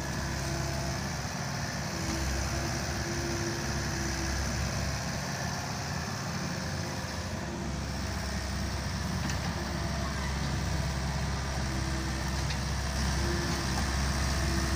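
Small Volvo wheeled excavator's diesel engine running steadily as the machine digs and loads, with a whine that comes and goes several times.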